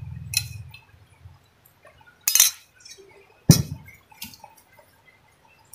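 Close-up eating sounds from a mouth: a few short wet slurps and smacks, the loudest two about two and three and a half seconds in, as rice and fish with broth are eaten by hand.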